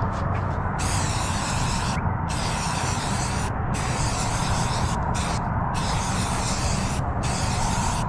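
Aerosol spray-paint can hissing in long bursts, cutting off briefly about five times as the nozzle is released and pressed again.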